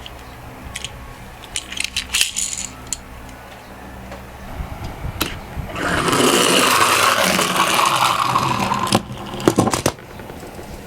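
Die-cast toy minicars clicking and rattling, then a minicar rolling down a slope with a steady rolling noise for about three seconds, ending in a few sharp clicks.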